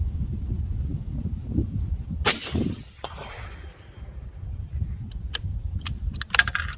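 A suppressed 6.5 Creedmoor bolt-action rifle, fitted with a Wildcat Predator 8 moderator, fires a single shot. About three-quarters of a second later a fainter crack with a brief ring comes back as the bullet strikes a steel gong at 200 yards. Near the end come a few sharp metallic clicks as the bolt is worked to eject the spent case.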